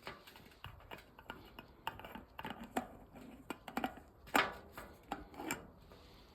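Hands handling a rubber balloon: a string of irregular clicks and taps with short squeaky rubbing sounds, the loudest about four seconds in.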